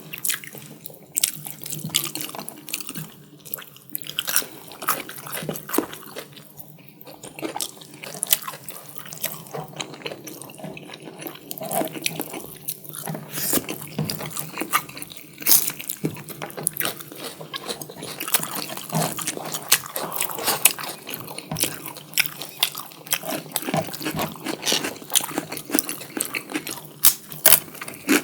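Close-miked eating of spicy chicken curry with biryani rice: wet chewing, biting and lip smacks, with many irregular sharp clicks.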